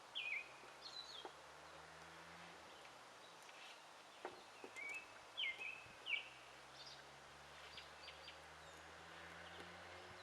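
Faint bird calls: short, hooked chirps, some in quick pairs, every second or so, over a very faint low hum.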